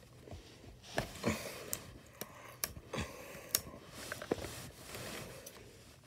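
Clear plastic shrink-wrap on a cylindrical toy package crinkling and crackling as fingers pick and tear at it, with scattered sharp clicks.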